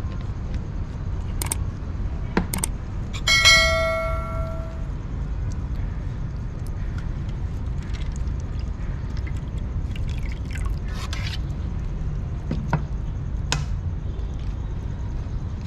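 Light clicks and clinks of feeding dishes over a steady low rumble, with one clear ringing tone about three seconds in that dies away over a second and a half. Around eight seconds in, liquid is poured from a plastic bottle into a bowl, a faint hiss lasting a few seconds.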